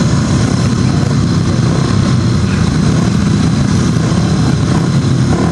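Several 500 cc single-cylinder speedway motorcycles running together at the start line, a loud, steady engine sound as they are held ready for the start.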